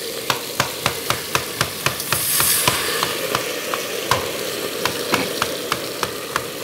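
Beef searing in a hot frying pan, sizzling with a quick run of sharp spits and pops, about three a second. A brief louder hiss comes about two seconds in.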